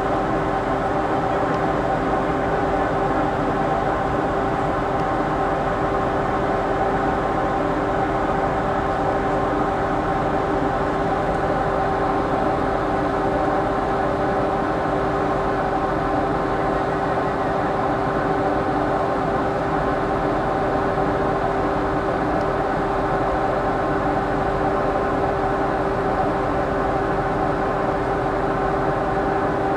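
A ship's machinery running, a steady drone with a constant hum that does not change.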